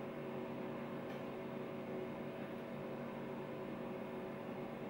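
Steady hum made of several constant tones over a faint hiss: room tone, with no distinct event.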